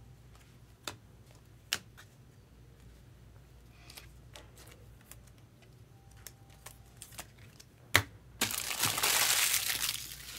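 A few light clicks and taps of trading cards being handled, then, about eight seconds in, a loud crinkling of a foil card-pack wrapper for about two seconds.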